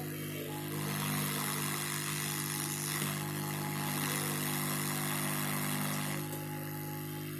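Hot-air rework station blowing on a circuit board. Its fan hums steadily, and a rush of air swells up about a second in and drops back near the end.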